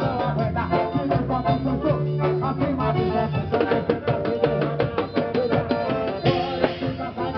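Instrumental forró music with drum kit and bass in a steady beat, played loud over a car sound system.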